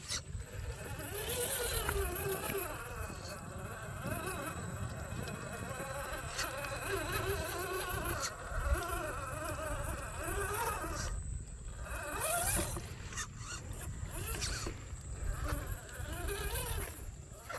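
Small electric motor of a radio-controlled car whining, its pitch rising and falling with the throttle, with repeated bursts of splashing water.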